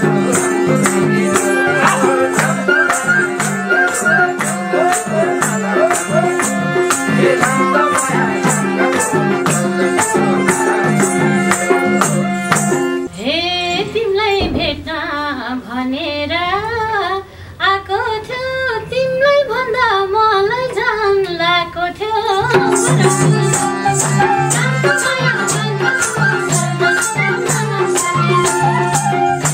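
Nepali live dohori music: a harmonium's held chords over an even percussion beat. About thirteen seconds in the band drops out and a woman sings a slow, ornamented solo line for about nine seconds, then the harmonium and percussion come back in.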